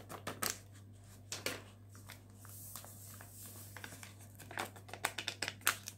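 Paper sachets of powdered whipped-cream mix crinkling and rustling in the hand as the powder is shaken out into a glass bowl. Sharp crackles come in clusters, busiest near the end.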